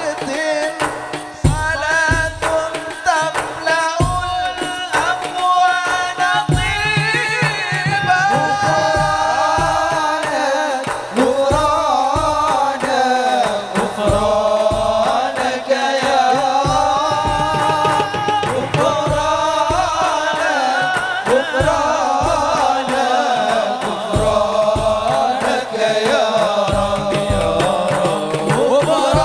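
Sholawat devotional song in Arabic: a lead singer's voice with other singers, over a steady beat of drums and a flute, heard through a PA system.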